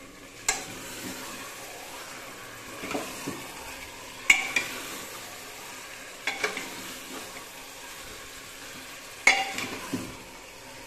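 Chicken curry sizzling in an open pressure cooker while a metal ladle stirs it, the ladle knocking sharply against the pot about four times.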